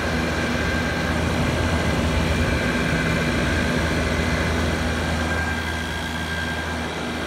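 Hampton Bay (LG-made) 12,000 BTU window air conditioner running: a steady hum with fan noise and a few constant tones.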